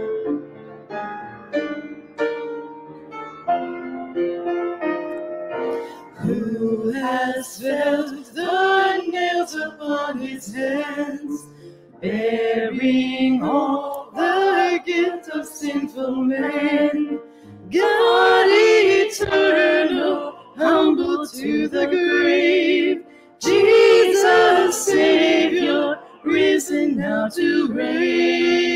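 Piano playing a worship song, joined about six seconds in by a group of voices singing along, in lines with short breaths between them.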